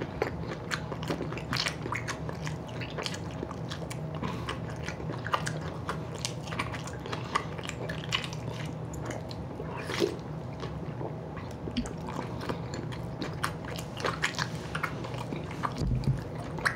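Close-up chewing of a big mouthful of chicken wing meat and gristle: steady wet smacking with many small irregular crunching clicks, over a low steady hum.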